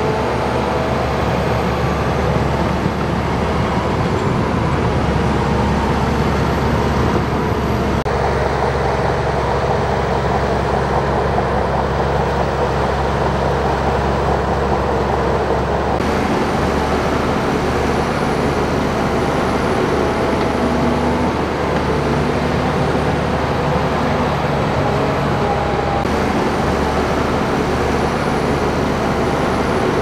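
Shantui DH17 crawler bulldozers' diesel engines running steadily as the dozers push soil: a continuous, even engine drone whose tone changes abruptly a few times.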